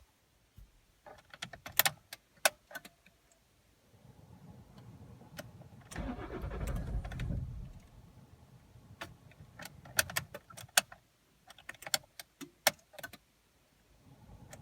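Cold start attempt on a Toyota 2.0 D-4D diesel with two damaged injectors, a fault that makes it slow to start. Sharp key and switch clicks come first, then a faint low hum from about 4 s. The starter cranks for about a second and a half starting around 6 s, then more clicks follow.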